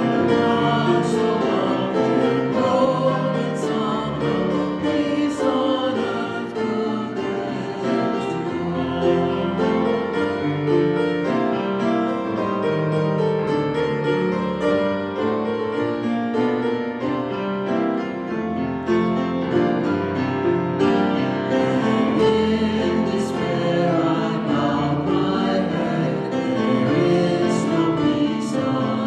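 A hymn sung by a choir with piano accompaniment, played throughout.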